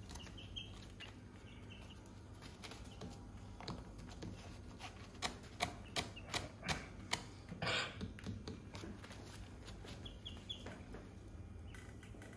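Young chickens pecking at the pen floor: a quick run of sharp taps about halfway through, then a short rustle, with a few faint high peeps.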